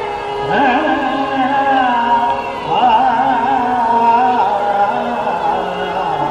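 Hindustani classical vocal in Raag Nat Malhar, Agra gayaki style: a man's voice holding and bending notes with wavering ornaments over a steady drone.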